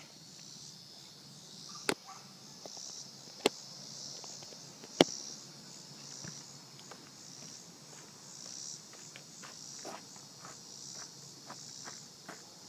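Insects chirping steadily in the background, broken by three sharp clicks about a second and a half apart, the last the loudest, and a few soft footstep-like knocks.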